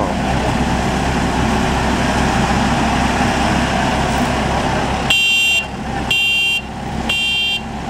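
A heavy farm machine's engine running loudly, then about five seconds in a reversing alarm starts beeping about once a second, each beep about half a second long, as the machine backs up; the engine noise drops between the beeps.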